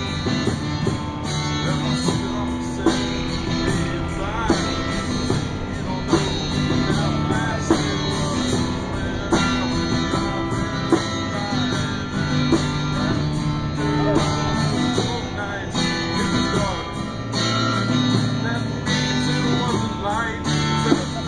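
Music: a guitar-led song with strummed guitar and a regular beat.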